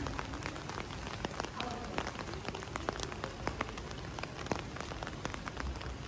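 Steady rain, with many close, sharp raindrop taps at irregular intervals over an even hiss.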